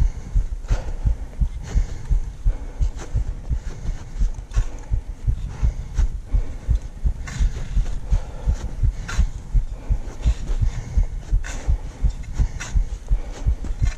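Footsteps of a climber walking uphill: dull low thumps about two a second, with sharper crunches among them.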